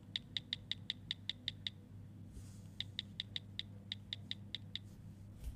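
Mobile phone keypad beeping as a text message is typed: quick runs of identical short beeps, about six a second, in two bursts with a pause of about a second between.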